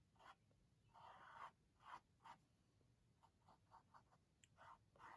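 Faint strokes of a small paintbrush dragging paint across a canvas: a series of short brushing swishes, with a longer stroke about a second in and a quick run of short strokes near the middle.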